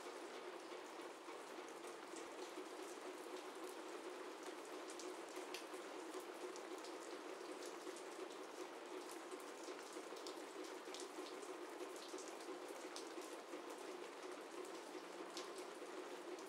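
Faint steady hiss with many small, scattered soft ticks, a light patter.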